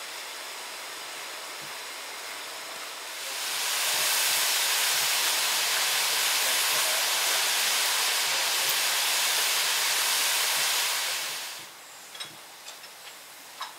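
Standing steam locomotive hissing steam. A softer steady hiss gives way, about three seconds in, to a much louder, even hiss of escaping steam that lasts about eight seconds and then stops, leaving a quieter background with a few faint clicks.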